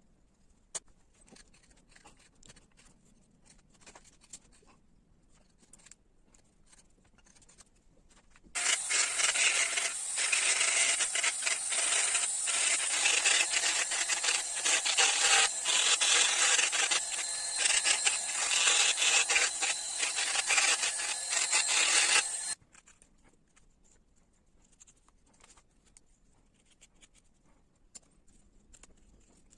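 Abrasive rubbing on linden wood, like hand sanding or rasping the carving, in quick continuous strokes. It starts abruptly about a third of the way in and stops abruptly after about fourteen seconds. Faint small scrapes and clicks of hand carving come before and after.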